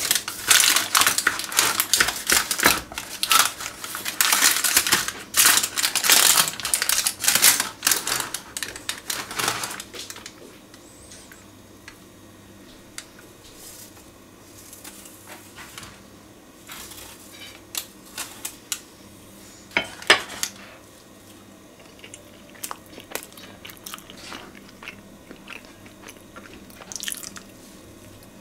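Kitchen knife sawing through the crisp baked crust of a banana pie on parchment paper: a dense run of crunching and crackling for about the first ten seconds, then only scattered soft clicks and rustles.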